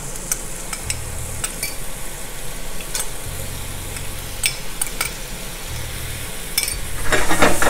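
Shrimp and broccoli sizzling in a hot frying pan over high heat as a brown stir-fry sauce is scraped in, with a metal spoon clicking against a small ceramic bowl. A few louder bursts of sound come near the end.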